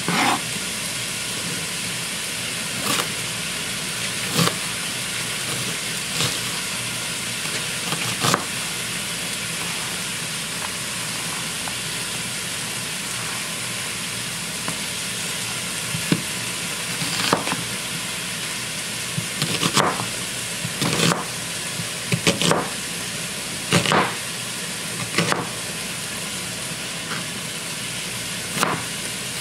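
Chef's knife chopping a white onion on a plastic cutting board: sharp knocks, a few spaced out at first, then many in quick runs through the second half. Underneath, a steady sizzle of chicken cooking in a pan.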